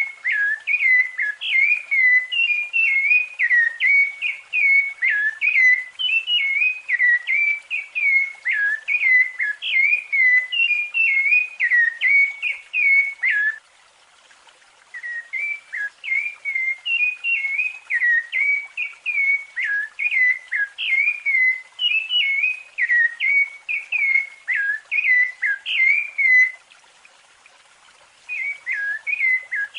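Rufous-bellied thrush singing its fluted song: a steady run of short, clear whistled notes, several a second. The song breaks off twice for a second or two, about halfway through and near the end.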